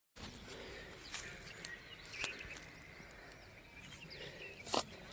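Quiet outdoor ambience with faint bird chirps and a few sharp clicks, the loudest near the end.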